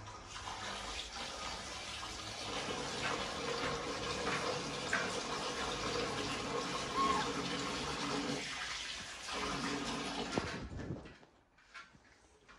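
Water running steadily from a kitchen tap, shut off suddenly about eleven seconds in, leaving a few faint clicks.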